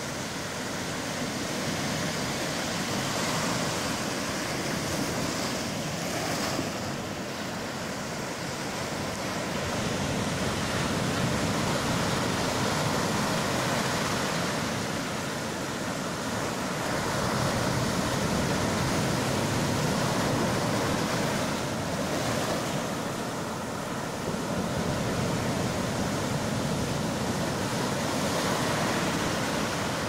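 Gentle sea waves breaking and washing up over a sandy shore with scattered rocks: a continuous rush of surf that swells and eases every several seconds.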